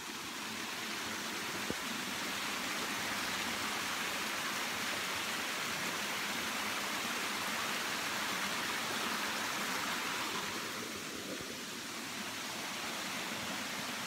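Water running down a small rocky woodland stream with a little cascade: a steady rushing hiss that eases slightly about eleven seconds in, then holds steady. A single faint tap about two seconds in.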